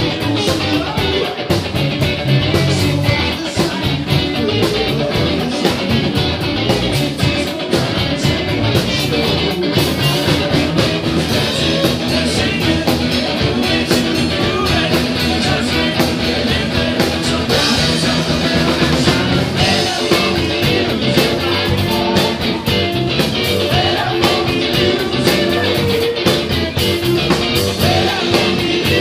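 Live rock band playing: a Washburn WI-66PRO electric guitar played through an amp, with drums and cymbals and a singing voice.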